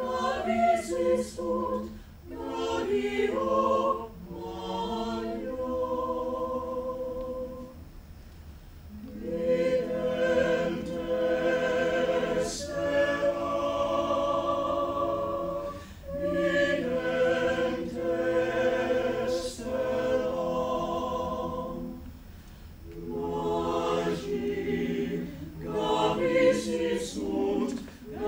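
Mixed chamber choir of about ten voices singing a cappella in sustained chords, in phrases with short breaks between them and crisp sung 's' consonants at the ends of words.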